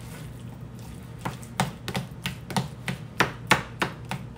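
A metal utensil mashing and chopping avocado into guacamole in a plastic container, clicking sharply against the container about three times a second, starting about a second in.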